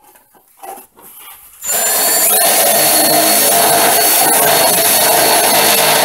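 Cordless drill with a twist bit running steadily at speed, drilling holes through a plastic toilet paper holder. It starts about two seconds in after a few faint handling clicks, with a thin high whine over the motor noise.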